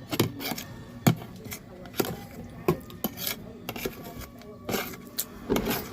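Cutlery scraping and clinking on a plate while eating, in a string of short irregular strokes.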